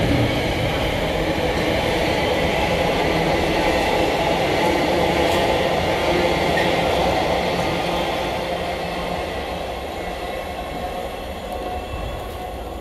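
A diesel train running through the station platforms with a loud, steady engine and rail noise that gradually fades over the last few seconds as it moves away.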